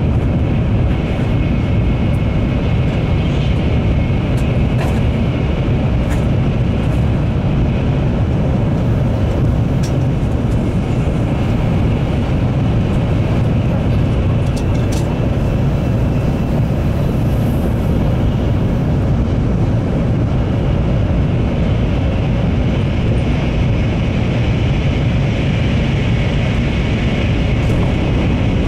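Cabin noise of a Series N700 Shinkansen running at speed through a tunnel: a loud, steady low noise with a few faint ticks.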